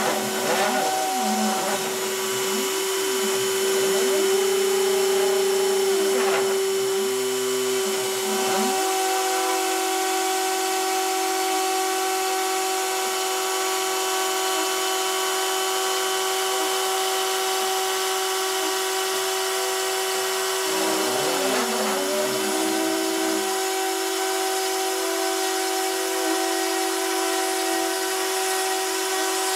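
A hobby CNC router's rotary tool spins at a steady high-pitched whine as its bit engraves cardboard. The machine's stepper motors add whines that rise and fall in pitch as the axes speed up and slow down, busiest in the first nine seconds and again a little after twenty seconds.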